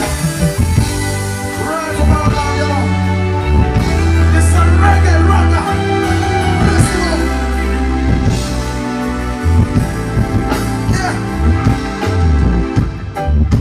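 Live band playing a slow reggae groove, with a held bass line under a wavering lead melody.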